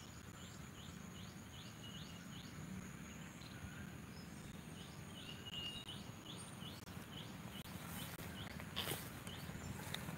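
Faint rural ambience: a run of quick, high, downward-sliding chirps, about three a second, comes twice over a steady thin high-pitched insect whine. There is a brief rustle about nine seconds in.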